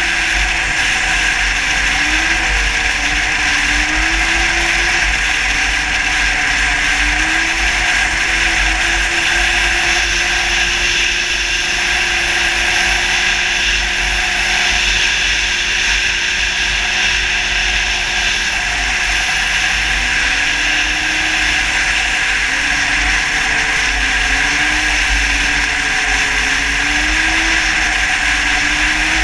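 Snowmobile four-stroke engine (2007 Yamaha Attak) running hard at speed. Its pitch rises and falls with the throttle, holds steady for a long stretch, drops briefly about two-thirds of the way through, then climbs again. A constant rush of wind and track noise runs underneath.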